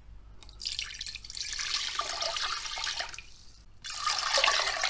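Water poured into a stainless steel pot over washed rice, in two pours with a short break between: one cupful, then another.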